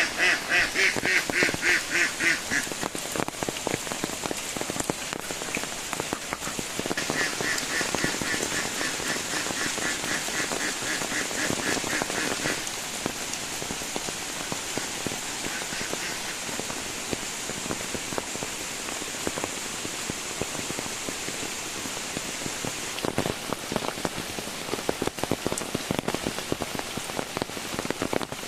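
Heavy rain falling steadily. A rapid string of evenly repeated animal calls sounds at the start and again from about 7 to 12 seconds in, and sharper drips and splashes come near the end.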